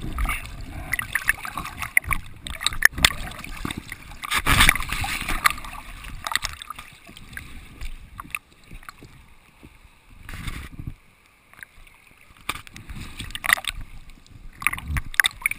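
River water sloshing and splashing against a camera held half-submerged at the surface, in irregular gushes and gurgles. The loudest gush comes about four to five seconds in.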